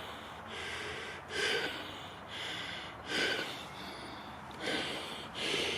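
A man breathing hard close to the microphone: about five short, hissy breaths, roughly one a second.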